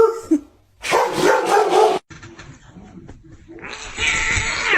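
A dog vocalizing in long, wavering howl-like calls, twice in the first two seconds. After a cut, quieter sound and a short noisy rush near the end.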